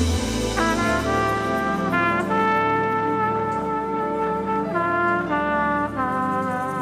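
A brass instrument plays a slow melody of held notes, some approached with a scoop up in pitch, over steady low bass and sustained chords.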